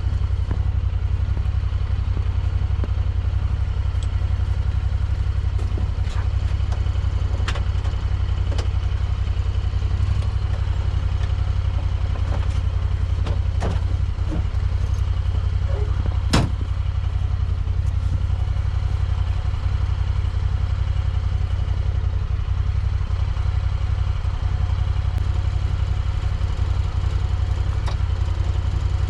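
A vehicle engine idling steadily, with occasional metal clicks and clanks from a snowplow being fitted to its mount, the sharpest one about halfway through.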